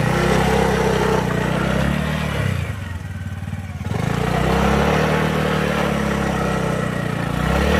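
Small motorcycle engine running under load on a rough off-road track. It eases off about two and a half seconds in, then picks back up a second or so later. The bike is struggling to pick up speed on the broken ground.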